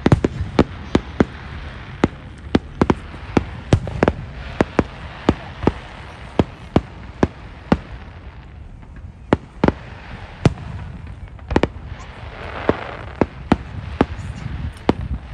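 Aerial firework shells bursting in quick, irregular succession: sharp bangs about two or three a second, with a short lull about eight seconds in.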